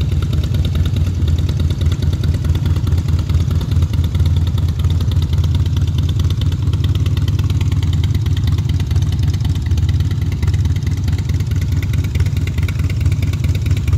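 2017 Harley-Davidson Heritage Classic's Twin Cam 103 V-twin engine idling steadily.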